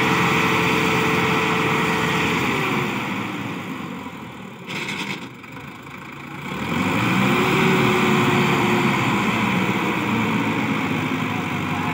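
Sonalika tractor's diesel engine revving hard and holding high revs, dropping back about four seconds in, then revving up again about seven seconds in and easing off near the end.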